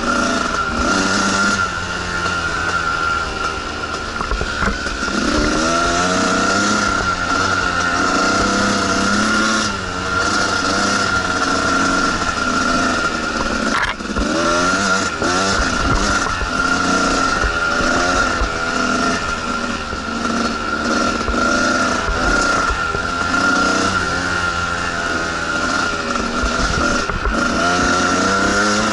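Two-stroke dirt bike engine running under load on a trail, its pitch rising and falling again and again with the throttle.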